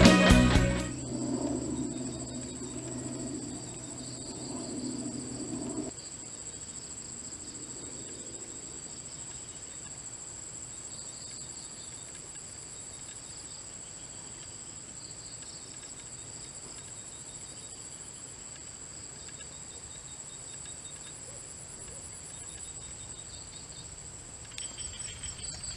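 Insects chirring steadily: one continuous high-pitched drone with a softer pulsing trill beneath it. A lower rushing noise runs underneath for the first six seconds, then cuts off suddenly.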